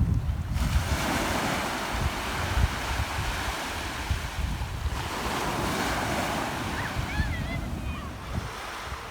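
Ocean waves washing up on a beach, the surf's rush swelling twice, with wind buffeting the microphone. A few short, faint high chirps come near the end.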